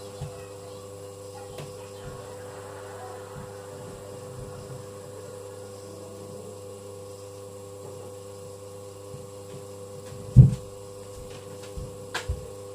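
Steady electrical hum with several constant tones. There is one dull low thump about ten seconds in and a few small knocks and a click near the end.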